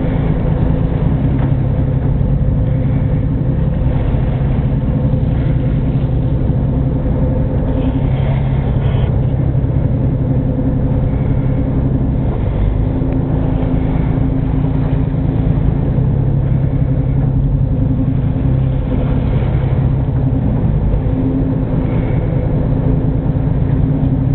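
Boat engine running steadily: an even, low hum.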